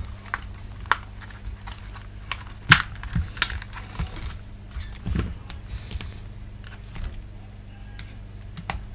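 Irregular small plastic clicks and taps from handling and working on the shell of a PS5 DualSense controller during disassembly, the loudest about 2.7 s in.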